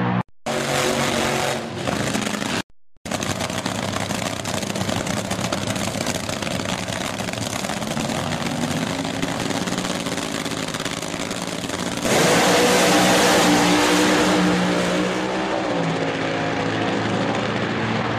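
Drag racing car engines: a burnout with engines revving, then engines idling at the start line. About twelve seconds in comes a sudden louder blast as the cars launch and accelerate down the strip, easing off a few seconds later.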